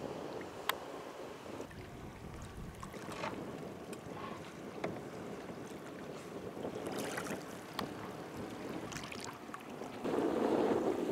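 Small waves lapping and slapping against a kayak's hull, with wind on the microphone. It gets louder near the end.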